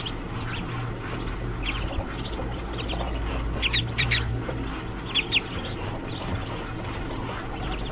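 Newly hatched ducklings peeping: scattered short, high-pitched cheeps, a few in quick pairs, over a low steady hum.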